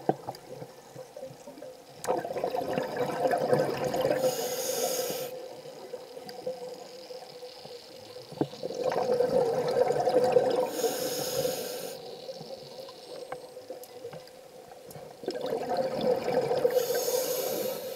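Scuba diver breathing through a regulator underwater: three breaths about six seconds apart, each a stretch of bubbling exhaust followed by a short hiss.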